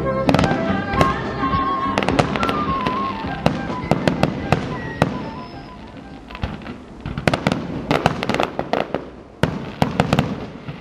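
Aerial fireworks shells bursting in a string of sharp bangs, with tight clusters of rapid bangs in the second half. Music with a clear melody plays under the first few seconds and then fades.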